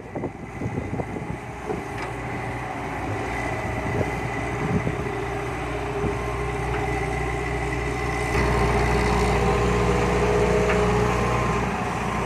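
Engine of heavy earthmoving machinery running steadily, growing louder and deeper about eight seconds in, with a few faint knocks.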